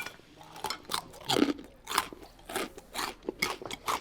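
Crisp fried naan being bitten and chewed close up: a quick, irregular run of dry crunches.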